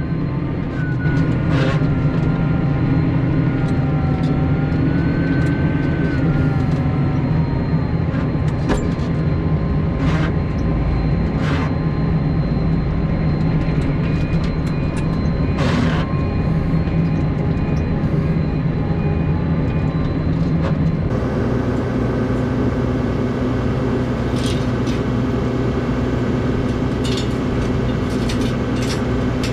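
Farm tractor with a front-end loader, its engine running steadily while the loaded bucket is carried and dumped. A whine that wavers up and down in pitch runs through the first several seconds, with scattered knocks and clunks. About two-thirds of the way through, the sound changes abruptly to a steadier, even engine hum.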